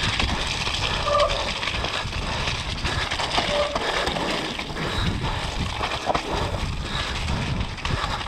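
Mountain bike riding down a muddy, snowy trail: tyre noise through mud and snow, with the bike knocking and rattling over bumps. There are brief squeaks about a second in and again about three and a half seconds in.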